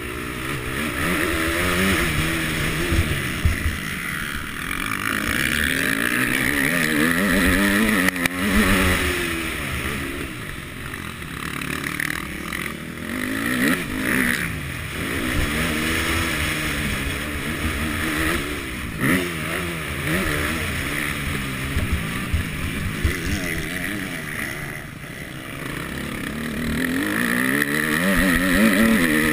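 250 KTM motocross bike's engine, heard onboard while it is ridden hard on a dirt track. The pitch climbs and falls again and again as the throttle is opened and closed.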